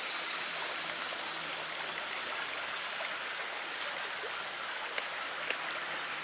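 Creek water running steadily over shallow rapids, with two faint clicks about five seconds in.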